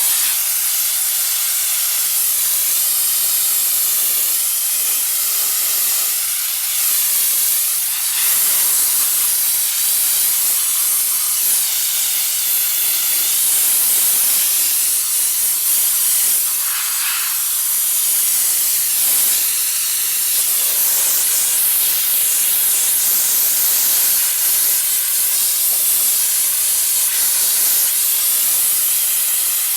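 Steam jet from a diesel-fired steam car washer's spray nozzle, giving a steady, loud hiss that wavers slightly in strength.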